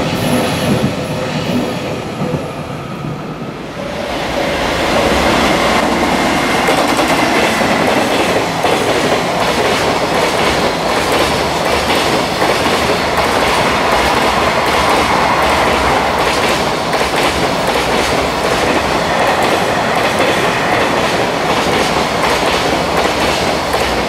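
A long container freight train passing close by at speed: a steady rumble with the clickety-clack of wagon wheels over the rail joints. The sound jumps louder about four seconds in, when the picture cuts to a second freight train.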